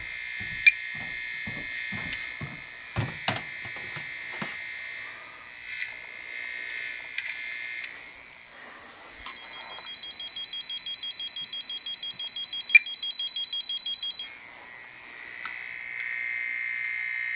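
A 'fox and hound' tone-tracer probe held against thermostat wiring gives a high steady tone, which marks the wire carrying the generator's signal. About halfway through the tone drops away, then comes back as a fast pulsing tone for several seconds, and turns steady again near the end. Handling clicks and knocks sound in the first few seconds.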